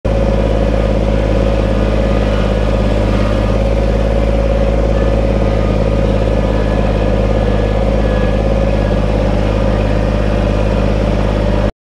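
Kubota compact tractor's diesel engine running at a steady speed while the tractor drives along, then it cuts off suddenly near the end.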